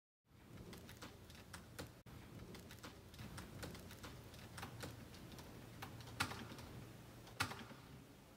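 Typing on a laptop keyboard: irregular soft key clicks, a few taps louder than the rest, over a faint low hum.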